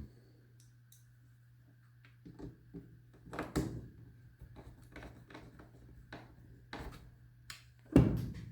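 Scattered knocks, taps and clicks of the reassembled plastic instrument cluster and tools being handled on a workbench, ending in a louder thump about eight seconds in, over a faint steady hum.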